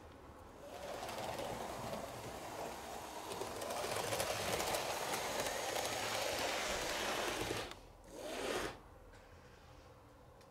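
Fleischmann HO scale Plan V model electric train running on the track, its small motor and wheels making a steady whirring rattle that gets louder about four seconds in. It stops abruptly just before eight seconds, then runs again briefly for under a second.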